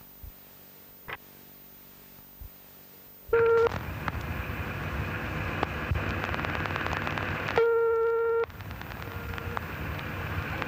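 Telephone ringing tone heard down the line: two tones about four seconds apart, the second longer, with hissing, crackling line noise between them. A few faint clicks come first.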